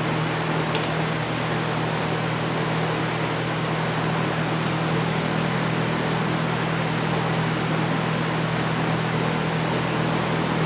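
Steady hum and hiss of a running fan, with one faint click about a second in.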